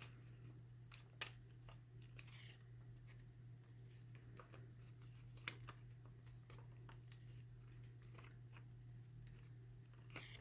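Faint handling of paper strips being folded back and forth over each other: scattered soft clicks and creases with a couple of brief rustles, over a steady low hum.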